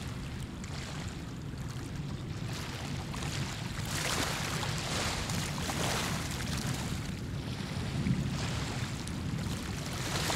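Gusty wind and water noise over a steady low rumble, with hissing swells about four and six seconds in and again near the end.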